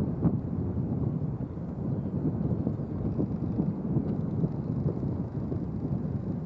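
Low, crackling rumble of an Airbus A350-900's Rolls-Royce Trent XWB jet engines, with wind buffeting the microphone.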